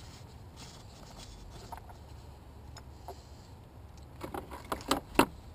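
A few faint clicks, then a quick run of sharp clicks and knocks about four seconds in, as the oil filter housing cap on top of the engine is worked loose by hand and the tools are handled.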